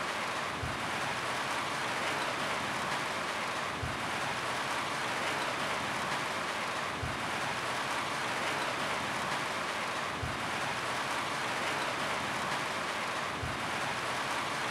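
Steady, dense rain drumming on a roof, with a short low thump recurring about every three seconds.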